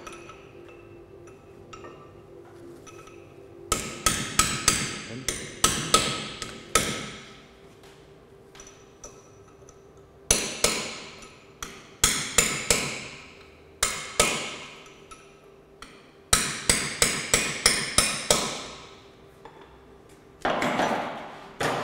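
Hammer striking a chisel to bend a Land Rover hub's stake washer over the wheel-bearing adjustment nuts. The metallic blows come in several quick runs with pauses between, each blow ringing briefly. A short, duller noise follows near the end.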